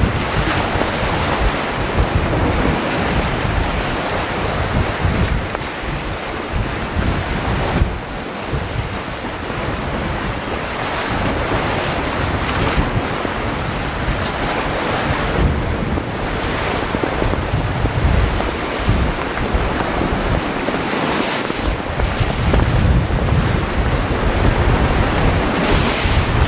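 Sea surf washing against a rocky shore, with wind buffeting the microphone in uneven gusts.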